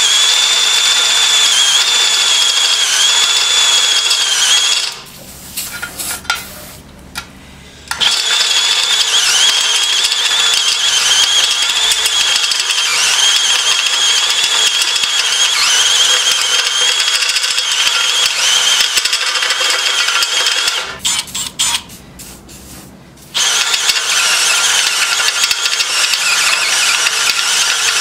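Milwaukee 2802 drill boring through a steel bar with a step drill bit, the motor running under load and the bit squealing at a high, wavering pitch as it cuts the metal. The drilling stops twice for a few seconds, about five and about twenty-one seconds in.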